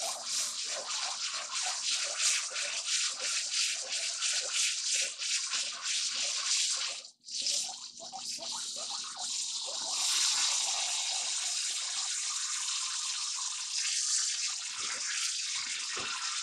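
Rice being washed in water: grains swished and rubbed in quick rhythmic strokes, a brief pause about seven seconds in, then a steadier rush of water from about ten seconds.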